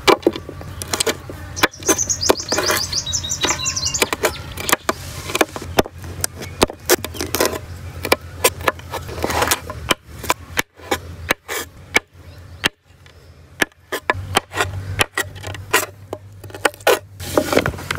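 Irregular sharp knocks and clicks, many in quick succession, over a steady low hum.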